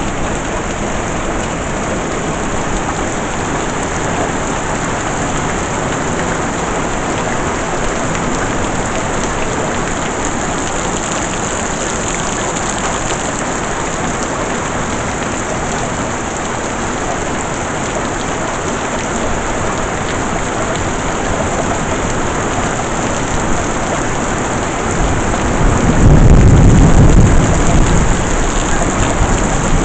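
Heavy rain falling steadily, with a loud roll of thunder rumbling in near the end.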